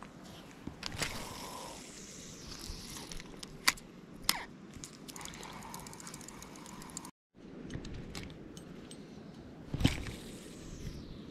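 Handling noise from a spinning rod and reel: scattered clicks and ticks from the reel and the hands on it, with a quick run of fine ticks in the middle and a louder bump against the camera near the end, over a faint steady background hiss.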